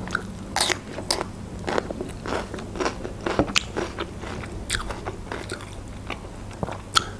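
A person biting into and chewing a raw yellow bell pepper slice, with many short irregular crunches.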